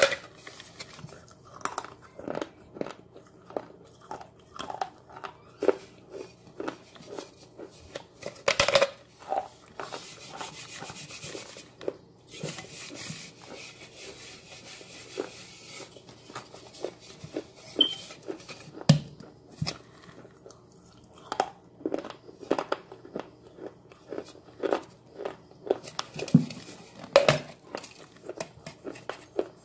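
Close-up biting and chewing of pieces of a thin baked clay pot: sharp crunches and clicks at irregular intervals as hard bits snap off between the teeth and are chewed, with a stretch of steady scraping about ten seconds in.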